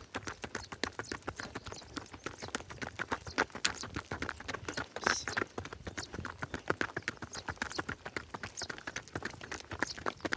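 A grey rahvan horse, a Turkish ambling breed, walking slowly on a hard dirt track: a steady, uneven run of hoof clops.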